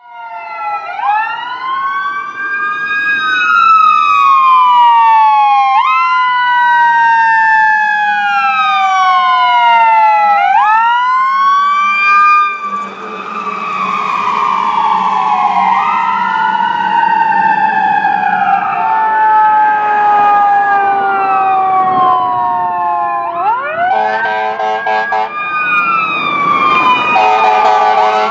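Fire engine sirens sounding on a response run. Several sirens overlap, each rising quickly and falling slowly in pitch. There is a short break about twelve seconds in, and near the end a rapid pulsing tone comes in.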